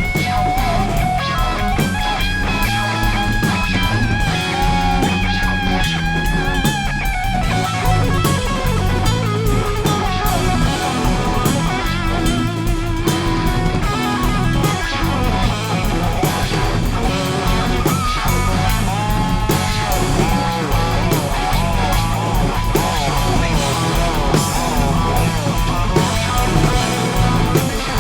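Instrumental rock jam: electric guitars over bass and drum kit, with a lead guitar holding long bending, wavering notes.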